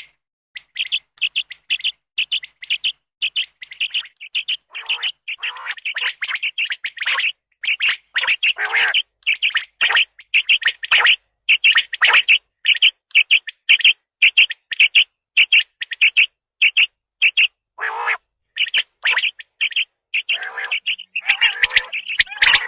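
Common quail calls played as a hunting lure: short, sharp notes repeated about three a second, with rougher, fuller calls mixed in at a few points.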